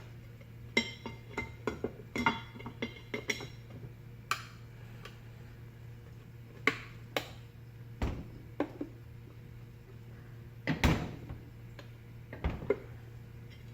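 Metal clinks and knocks from flathead screwdrivers working at a fan motor's metal housing as it is pried apart: a quick run of clinks in the first few seconds, then single knocks every second or two, over a steady low hum.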